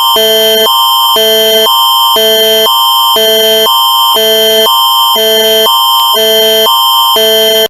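Canadian Alerting Attention Signal (the Alert Ready tone): a loud electronic alert tone that alternates every half second between a higher chord and a lower chord over a steady high tone, then cuts off suddenly.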